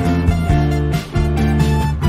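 Upbeat background music with a strummed guitar and a steady beat.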